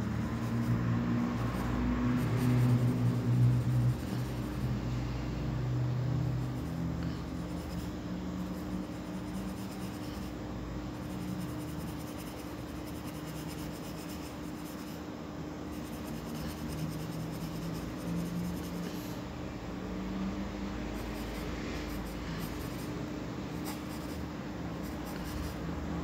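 Graphite pencil scratching on drawing paper in repeated short strokes, over a steady low hum. A low drone is louder in the first few seconds.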